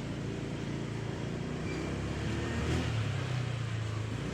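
A motor vehicle's engine running steadily with road noise, heard from on board; it grows a little louder about three seconds in.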